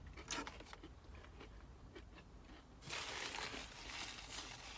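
Faint crinkling and crunching of a fried chicken sandwich and its paper wrapper as it is bitten into and chewed, a few small clicks at first and the main rustle about three seconds in.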